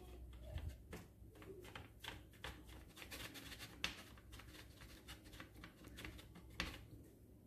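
Faint, irregular scratching and light clicks of fingers pressing and rolling a ball of dough across a perforated metal grater plate, with two sharper taps, about four seconds in and near the end.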